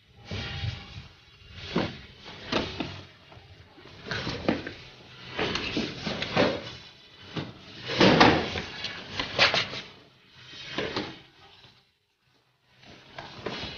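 Footsteps and thuds of a man running and jumping on concrete rooftops and steps: irregular knocks and scuffs, briefly dropping out just before the end.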